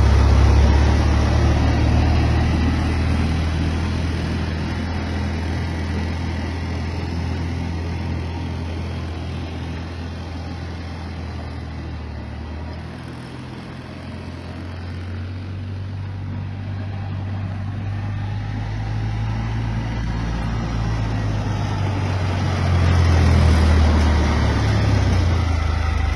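Polaris Ranger XP utility vehicle's engine running, growing fainter to its quietest about halfway through, then louder again near the end, as the machine moves away and comes back.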